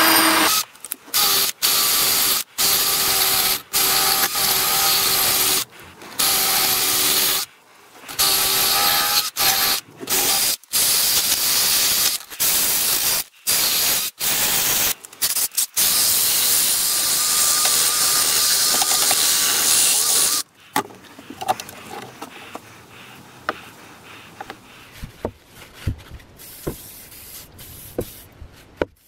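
A cordless drill spins a wire wheel brush against the steel of a rusty axe head, a steady motor whine under a harsh scraping hiss, stopping and starting many times as the rust is stripped. About twenty seconds in the drilling stops, leaving a few quieter knocks and taps.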